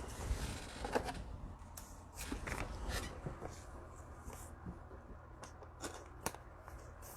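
Football trading cards being handled and flicked through by hand: light rustling with a few sharp clicks, the clearest about a second in and near the end.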